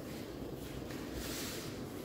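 Steady low background hum of a quiet room, with a soft brief hiss a little past the middle.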